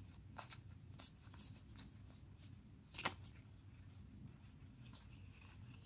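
Faint soft clicks and rustling of a stack of football trading cards being flipped one behind another in the hands, with one sharper card snap about three seconds in.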